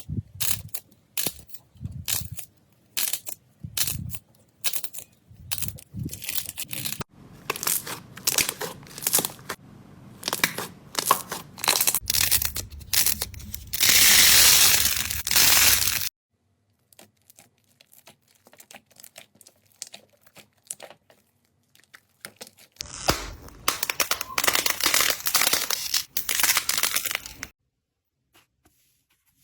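Slime being squeezed, poked and stretched by hand: a run of sharp crackles and pops that grows denser, a loud continuous squishing crackle about halfway through, sparse faint clicks, then another dense stretch of crackling near the end.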